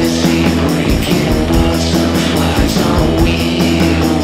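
Rock band recording: electric guitar over bass and drums keeping a steady beat.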